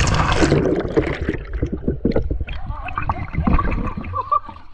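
Water splashing hard at the start, then gurgling and bubbling, with many short irregular splashes in the hot spring pool.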